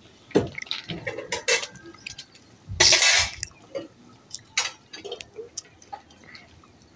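Mouth chewing on a hard wooden chewing stick to soften it: irregular wet clicks and small crunches of teeth on wood and saliva, with one louder rushing noise about half a second long near the middle.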